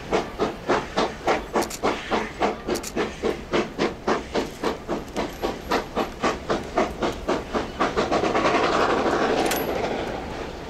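JS-class 2-8-2 steam locomotive's exhaust beating steadily, about three beats a second, as it hauls a long freight train. About eight seconds in, the beats stop and a loud steady hiss of steam takes over, fading near the end.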